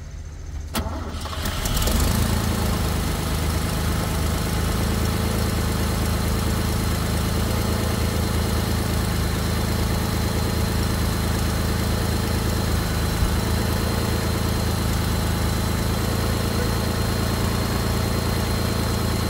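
1964 Mercedes-Benz 220SE's fuel-injected straight-six starting from cold: a click, brief cranking, and the engine catches about two seconds in, then idles steadily.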